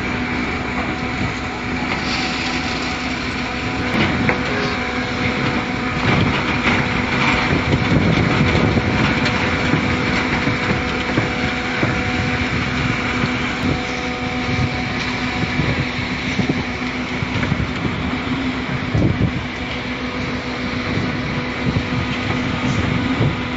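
Concrete mixer pump running: a steady machine din with a constant hum and irregular rattling and clanking.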